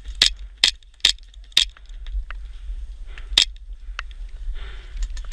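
Airsoft gunfire: four sharp cracks about half a second apart, then a single crack about three and a half seconds in.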